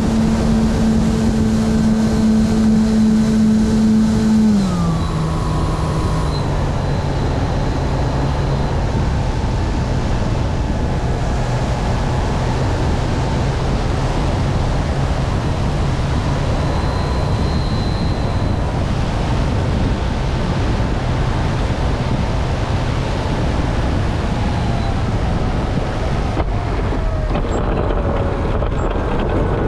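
Radio-controlled model airplane's motor and propeller running steadily, heard from the on-board camera with wind rushing over the microphone. About four to five seconds in the motor drops to a lower pitch and holds there.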